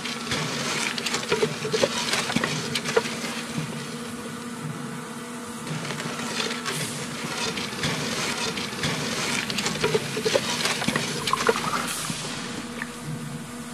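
Grain being raked and shovelled across a floor: a dense rustling and scraping with many small clicks, over a steady low machine hum.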